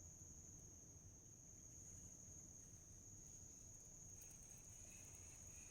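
Faint, steady high-pitched chirring of insects. A second, lower chirring joins about four seconds in.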